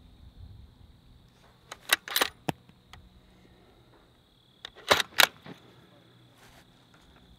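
Bolt of a Ruger Precision Rifle being cycled after a shot: a quick cluster of metallic clicks about two seconds in as the bolt is lifted and drawn back, ejecting the spent .308 case, then a second cluster about three seconds later as the bolt is run forward and locked.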